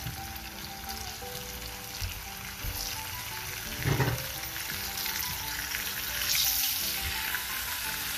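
Salted potato halves sizzling in hot oil as more pieces go into the frying pan, the sizzle growing a little louder. There is a single soft thump about four seconds in.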